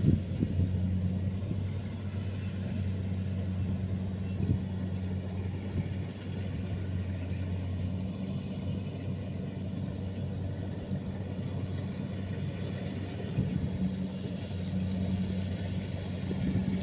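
Diesel engine of a crawler rice combine harvester running steadily as it cuts through ripe rice: a steady low hum.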